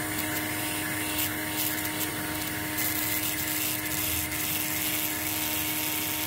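Surgical implant drill handpiece running at a steady pitch while its bur cuts into a plastic skull model, with a grinding hiss that comes and goes as the bur bites.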